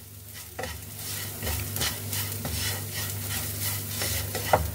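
Spatula stirring and scraping a frying masala of onion, garlic and spices around a non-stick frying pan, in irregular strokes over a light sizzle.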